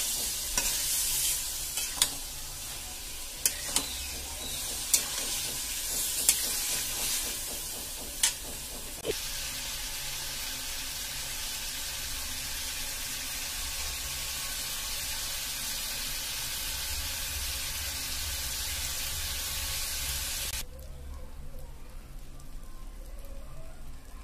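Jackfruit pieces frying in oil in a metal kadai with a steady sizzle, and a spoon clicking against the pan as it is stirred during the first several seconds. The sizzle drops away suddenly near the end.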